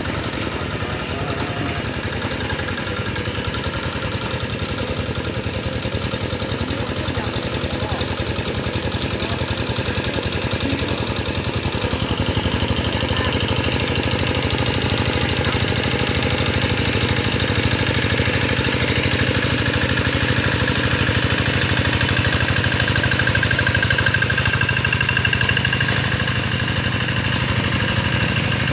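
A two-wheel hand tractor's diesel engine runs steadily under load as it harrows a flooded rice paddy. It grows a little louder about twelve seconds in.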